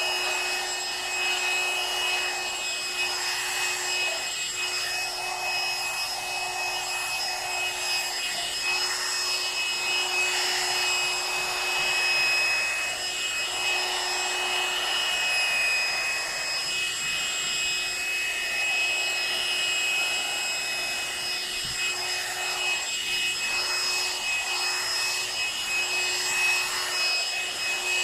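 Electric hair dryer running steadily: a rush of blown air with a thin, steady motor whine, the loudness wavering slightly.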